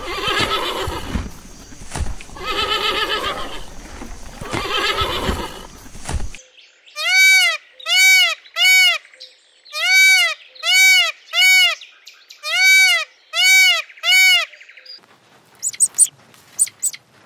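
Peacock calling: nine loud, clear cries that each rise and fall, in three sets of three. Before them, a wavering animal call comes three times over a background hiss. Near the end there are faint, short, high chirps.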